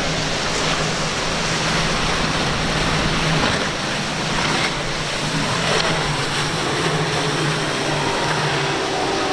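Twin Mercury 250 hp outboard engines on a Sea Vee center-console boat running at speed, a steady low engine drone, under the loud rush of breaking surf and spray.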